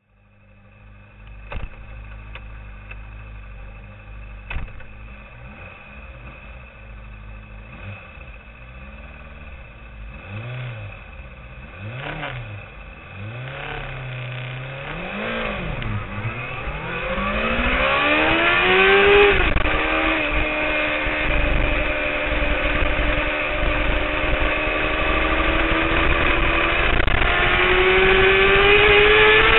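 Honda CBR600RR's inline-four engine idling steadily, then revved in a run of short throttle blips, then accelerating hard: the revs climb, drop at an upshift about 19 seconds in, and climb again.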